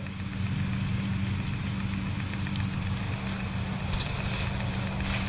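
A steady, low engine hum, like a small engine running at constant speed.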